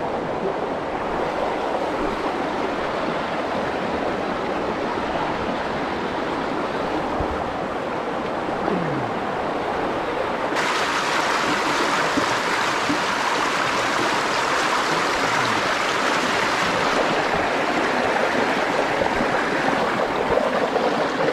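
Rushing river water, a steady wash that becomes suddenly brighter and louder about ten seconds in.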